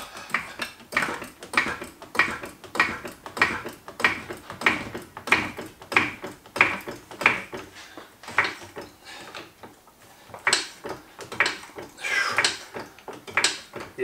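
Hydraulic trolley jack being pumped by its long handle, a short clack on each stroke, about three strokes every two seconds, lifting a car under load. The pumping stops for a moment past the middle, then picks up again.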